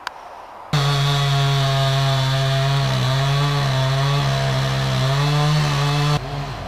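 Chainsaw engine running at high revs, a loud steady buzz with small dips in pitch, starting abruptly under a second in and stopping abruptly near the end; a quieter motor drone follows.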